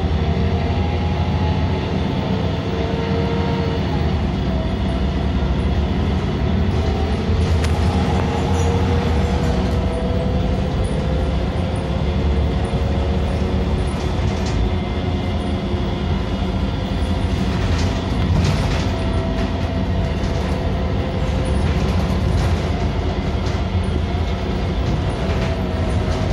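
Inside the cabin of an Irisbus Cityclass CNG city bus under way: steady low drone of the compressed-natural-gas engine and driveline, with a whine that rises in pitch as the bus accelerates over the first several seconds. Clattering rattles and knocks from the body and fittings come and go, most around the middle and near the end.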